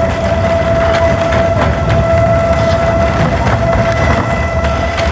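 La Trochita narrow-gauge steam train rolling, with a low rumble and wheel clatter on the rails under one long, steady high tone from the train.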